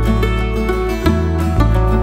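Instrumental background music: pitched notes changing every fraction of a second over a bass line.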